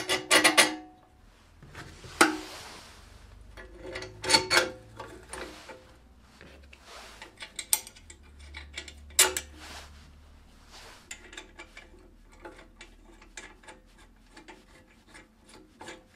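Steel parts of a homemade belt grinder frame clinking and knocking irregularly as they are handled and fitted, some knocks ringing briefly, with a short scrape about two seconds in. The loudest clatter comes right at the start.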